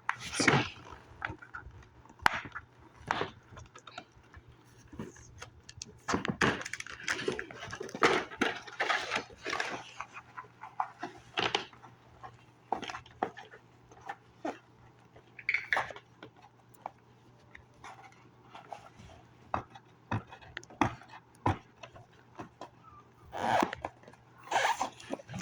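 Irregular rustling, clicks and knocks of a toy's cardboard-and-plastic packaging being handled and pulled open, over a faint steady low hum.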